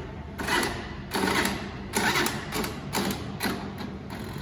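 Scooter engine being cranked by its starter in uneven bursts of clatter about every half second, not catching: the scooter won't start.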